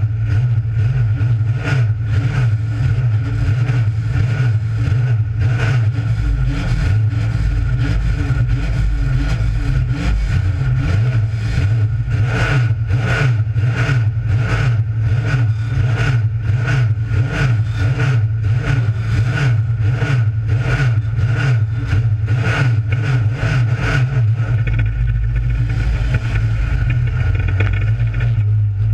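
Dirt-track stock car engine running hard at racing speed, heard loud and close from inside the cockpit. Short knocks come about twice a second through the middle stretch.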